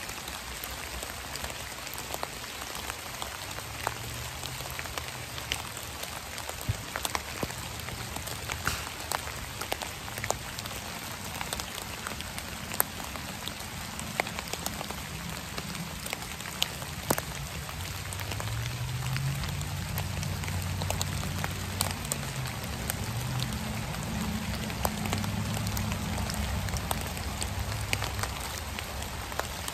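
Rain pattering and dripping onto wet fallen leaves in a forest, a steady hiss dotted with sharper individual drops. Underneath runs a faint low drone that shifts in pitch and grows a little louder about two-thirds of the way in.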